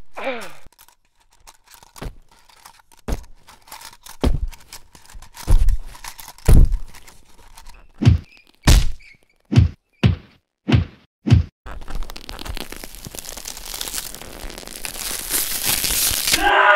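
Foley fight sound effects: about a dozen punch-like thuds and whacks, roughly a second apart and coming faster toward the end, then a hiss that swells for several seconds and cuts off suddenly.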